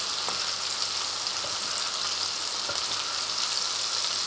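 Streaky bacon frying in clarified butter in a pan: a steady sizzle. A few faint knife knocks on a wooden cutting board sound over it.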